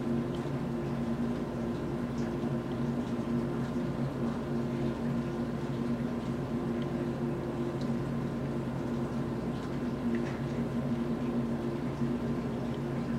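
Steady low machine hum with a constant hiss, and a few faint ticks scattered through it.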